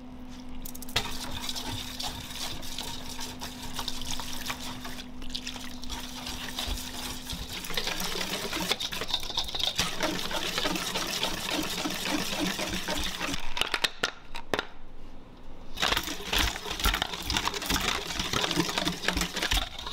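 Water poured from a steel bowl onto batter powder in a large stainless steel mixing bowl. A little before halfway, a wire whisk starts beating it into a thick, wet batter against the bowl in repeated strokes.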